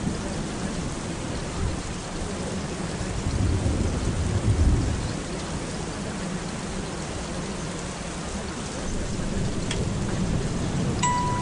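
Steady rain with a low rumble of thunder that swells about four seconds in.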